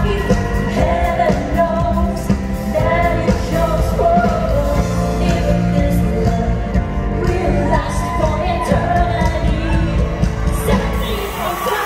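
Live band playing an amplified pop-rock song with a singing voice carrying the melody over a steady beat, heard through the hall's speakers.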